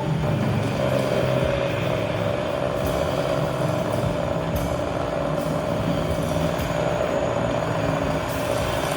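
Improvised experimental music from turntables and drums: a dense, noisy drone with low rumbling layers and a steady mid-pitched tone that enters about a second in and holds.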